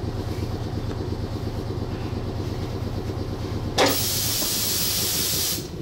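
Stationary electric train humming steadily with its equipment running, then about four seconds in a sudden loud hiss of released compressed air that lasts nearly two seconds and cuts off sharply.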